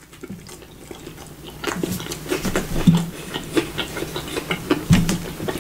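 A person biting into a fast-food sandwich and chewing, with wet mouth clicks and smacks that come thicker from about a second and a half in.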